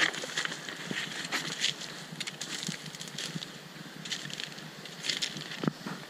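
Footsteps crunching through leaf litter and twigs, with leaves and branches brushing past, in an irregular patter of small crackles and rustles.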